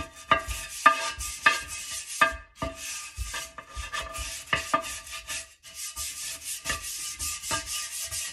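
Stiff-bristled kitchen brush scrubbing baked-on food off a stoneware baking stone, in quick back-and-forth scratchy strokes, about two a second.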